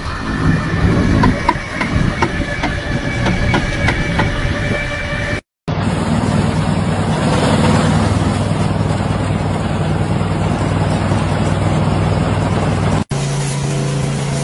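Three machines in turn, each cut off sharply. First a solar-panel cleaning robot's brush drive runs with a steady whine and regular clicks. Then a straw blower runs with a steady rushing noise over a low hum, and near the end a motorised street-washing tricycle hums steadily.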